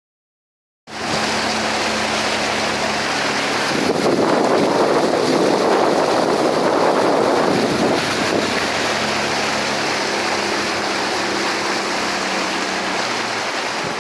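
Boat engine running out on open water, a steady low hum under heavy rushing noise from wind on the microphone and water. It cuts in suddenly about a second in and is loudest a few seconds later.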